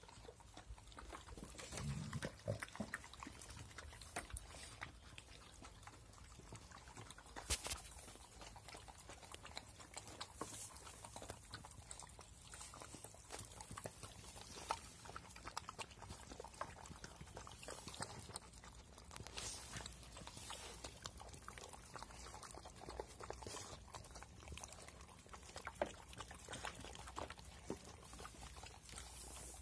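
Puppies chewing and crunching dry kibble from a metal tray, with many scattered clicks and knocks as pellets and muzzles hit the tray.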